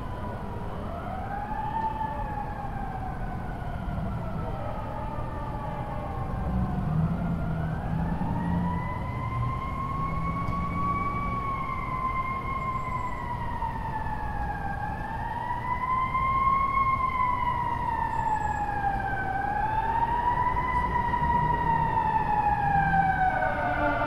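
Fire engine siren wailing in slow rising and falling sweeps, each rise quicker than its fall, about one cycle every four to five seconds. In the first few seconds a second siren wails out of step with it. A low rumble runs underneath, and the siren grows somewhat louder toward the end.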